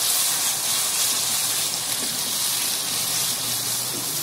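Chopped onions, ginger-garlic paste and green chillies frying in hot oil in a kadhai, sizzling steadily with a strong hiss as a splash of water just added turns to steam, while a spoon stirs the mixture.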